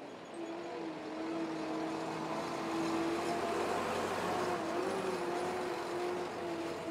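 A motor vehicle running on the road: a steady engine hum with a slight waver in pitch over tyre and road noise, growing louder over the first couple of seconds and then holding steady.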